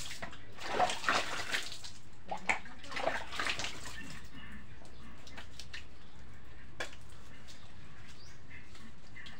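Water from a plastic dipper splashing over a person bathing and onto a wet floor, in a few splashes during the first four seconds, then quieter, with a single click near the middle.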